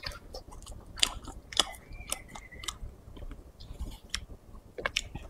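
A person chewing pieces of spicy shredded duck meat close to a clip-on microphone, with a few short sharp mouth clicks along the way.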